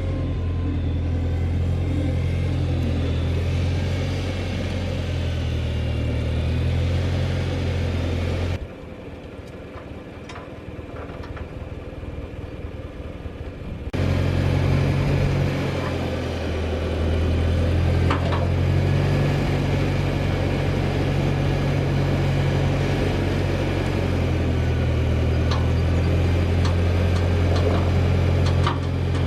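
1964 Massey Ferguson 35 Deluxe tractor's engine running steadily while it works its front-end loader to lift a sawmill carriage. The sound drops away abruptly for about five seconds near the middle, then comes back at full strength.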